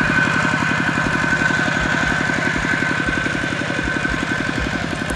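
A small engine running steadily with a fast, even putter. It is working machinery close by in the rice fields.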